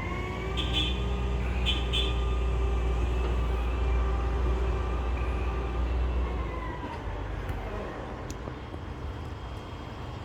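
A motor vehicle's engine rumbling nearby, with a slight fall in pitch, then fading away after about six and a half seconds as it passes; there are two short hisses early on.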